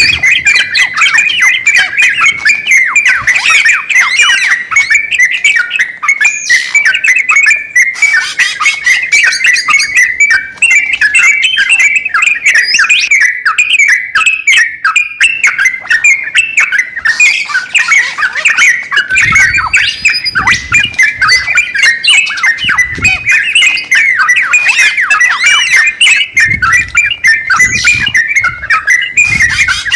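Crokcokan songbird singing a loud, continuous run of rapid chattering notes in full song. A few low thumps come in the second half.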